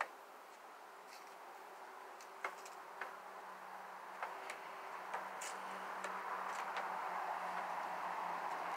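Footsteps on dry fallen leaves: scattered light clicks and crackles about once a second, over a faint steady hum and a soft rushing noise that slowly grows louder.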